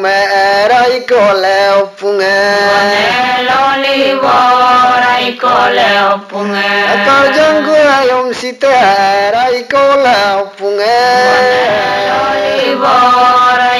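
A singer chanting a traditional Adi ponung miri abang in long, melodic phrases, holding and bending notes, with short breaks for breath between phrases. A steady low hum runs under the voice.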